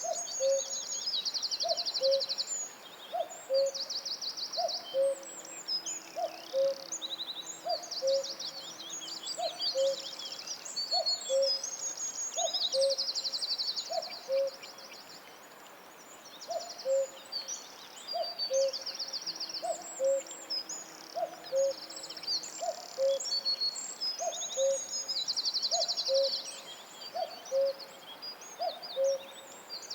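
Tropical forest bird chorus: a low two-note hooting call repeats steadily about every second and a bit, under many high chirps, whistles and buzzy trills from other birds.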